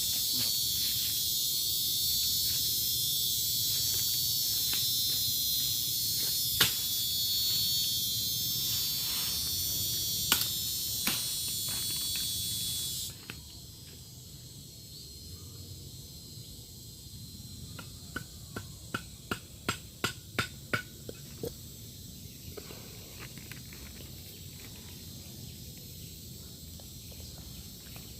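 Dense high-pitched insect chorus that cuts off suddenly about thirteen seconds in, leaving a fainter insect hum. A little later comes a quick run of about ten sharp clicks.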